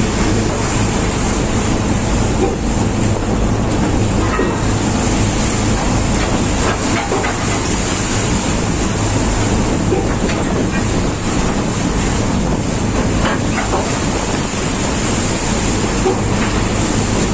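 Storm wind buffeting the microphone and rough seas breaking over the deck of a half-submerged tugboat, with a steady low engine hum underneath.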